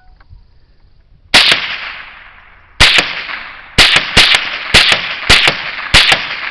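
Ruger 10/22 .22 rifle firing a string of seven shots, the first three more than a second apart, then about one every half second. Each shot is sharp and loud with a fading echo and a fainter crack just after it.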